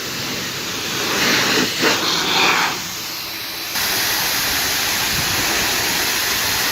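Air blower blowing rinse water off a car's paintwork, a steady rushing hiss that swells a few times and then steps louder a little past halfway.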